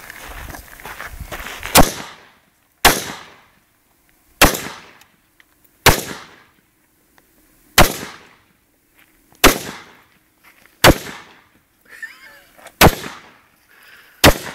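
Nine single rifle shots in aimed fire, each a sharp crack with a short echoing tail, spaced about one to two seconds apart; the first comes almost two seconds in.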